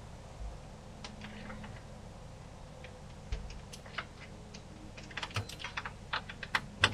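Light, irregular clicking of a ratchet and wrench loosening a 10 mm bolt, the clicks coming quicker and louder over the last two seconds.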